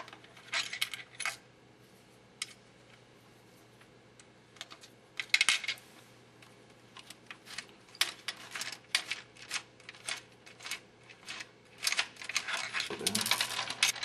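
Small metallic clicks and clinks from the bolts holding a Davis Vantage Pro2 rain collector to its radiation shield being loosened and handled by hand. The clinks come sparse at first, grow frequent from about halfway, and turn into a denser clatter near the end as the collector comes away from the shield plates.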